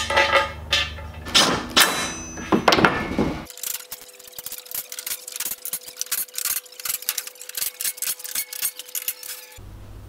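Aluminium extrusion frame parts and hardware being handled during assembly: sharp metallic clicks and knocks over a low hum for the first few seconds, then a quicker run of lighter clicks and rattles.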